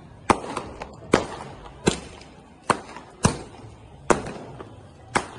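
Aerial fireworks cake (multi-shot battery) firing shot after shot: seven sharp bangs with a short echo after each, at uneven gaps of under a second.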